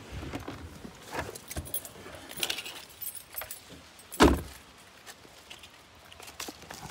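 Clicking and rattling of keys and handling as a person climbs out of a car. A single heavy thump about four seconds in is the car door being shut.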